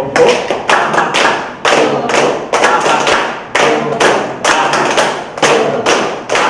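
A small group clapping their hands together in a steady rhythm, about four claps a second: the rhythmic clapping of a laughter-yoga (laughter club) exercise.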